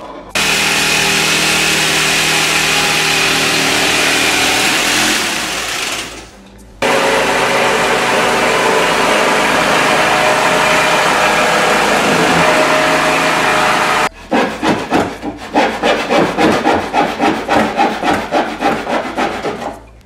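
Cabinet wood being cut. First comes a motorised saw in two long continuous runs with a brief stop between them, about 6 seconds in. From about 14 seconds in it is hand sawing, quick back-and-forth strokes about two to three a second.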